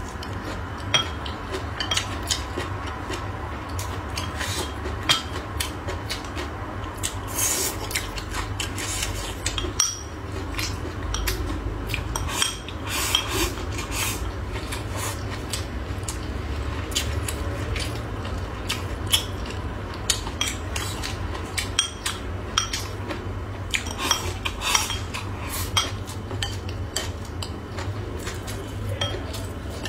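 Close-miked eating: wooden chopsticks clicking and scraping against a ceramic bowl and plate in many light, irregular clicks, with chewing and slurping from the bowl, over a steady low hum.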